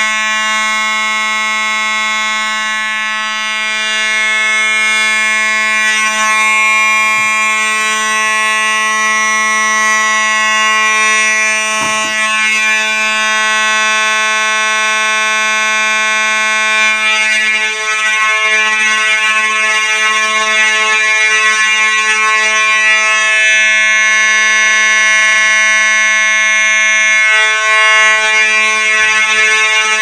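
Faraday 6120 electromechanical fire alarm horn strobe sounding a steady, unbroken horn tone. The panel is in alarm with its signals set to continuous rather than a coded or march-time pattern.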